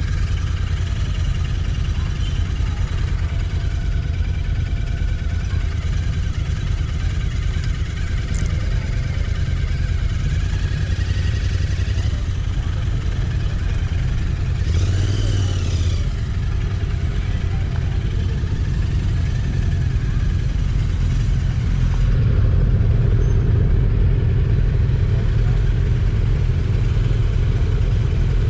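Motorcycle engines idling and running at low speed, the nearest a Royal Enfield Interceptor 650 parallel twin. One engine revs up and back down about halfway through, and the engine sound grows louder for the last several seconds as the bikes move off together.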